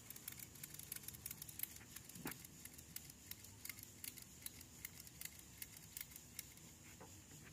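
Faint, irregular clicking and jingling of a ratchet strap's metal hook and buckle being handled, with one brief falling squeak about two seconds in.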